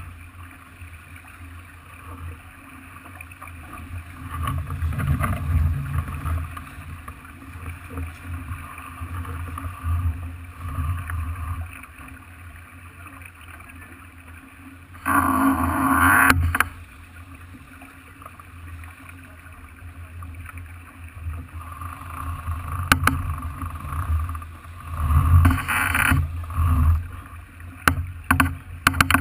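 Onboard sound of a Farr 40 racing sailboat under way: water rushing along the hull and wind, surging and easing, with a sudden loud rush lasting over a second about halfway through and a few sharp clicks near the end.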